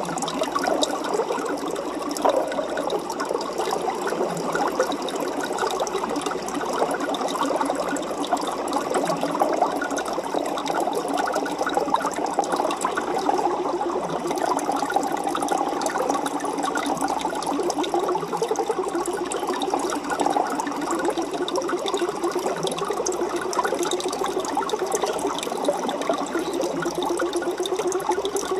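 Aquarium water trickling and bubbling steadily, as a dense, even stream of fine crackles.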